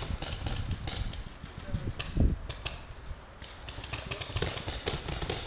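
Paintball markers firing across the field in scattered pops, over a low rumble, with one louder thump about two seconds in.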